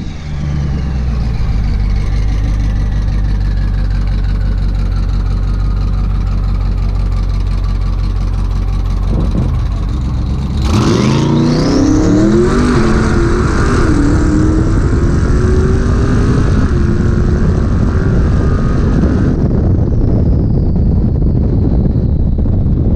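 Twin-turbo Dodge Demon V8 making a drag pass on its wastegate springs alone, with the boost controller off. For about ten seconds the engine runs low and steady under a high whistle falling in pitch. Then it launches: the engine note climbs steadily with a high turbo whistle for about eight seconds, until the whistle cuts off suddenly.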